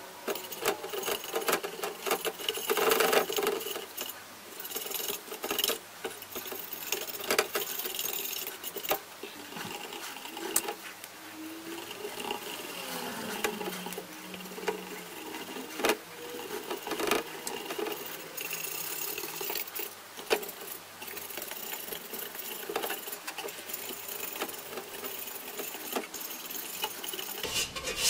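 A brush and fingertips working over the pitted steel shell of a helmet: quick scratchy dabbing and rubbing, broken by irregular sharp clicks and taps.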